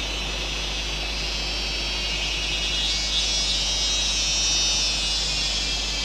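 Tropical jungle insects buzzing in a steady, high-pitched chorus that grows louder about halfway through and eases near the end.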